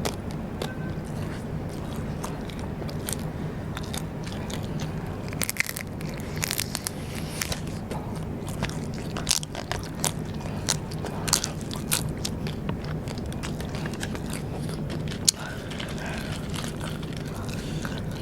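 Close-miked biting and chewing of Vietnamese rice paper (bánh tráng) snacks, with sharp, crisp crunches scattered irregularly throughout. A steady low hum runs underneath.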